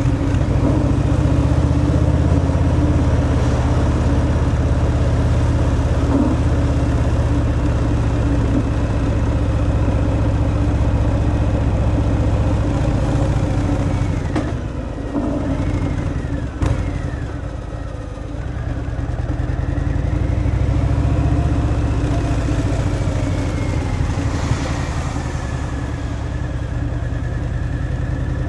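Harley-Davidson Fat Boy's air-cooled V-twin running through its stock exhaust while riding. About halfway through the engine eases off and its pitch falls, with one sharp click, then it picks up again.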